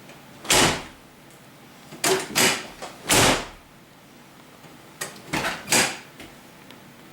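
A 1999 Chevy Suburban's door knocking in its worn hinges as it is worked up and down: seven short knocks, one about half a second in, then a group of three and a later group of three. The play comes from a hinge pin with a bushing completely missing.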